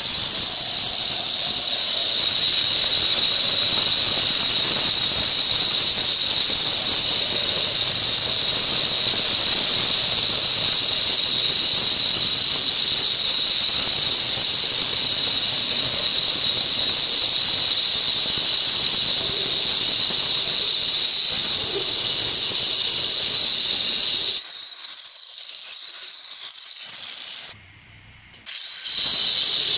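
Handheld electric stone saw cutting through a granite slab, a steady high-pitched whine. A few seconds before the end the whine drops away to a quieter, uneven sound and a moment of near silence, then the cutting whine comes back.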